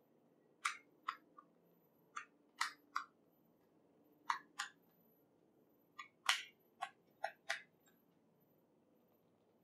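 Plastic layers of a Rubik's Cube-style puzzle cabinet clicking as they are twisted by hand: about a dozen sharp clicks in quick groups of two or three, stopping about eight seconds in.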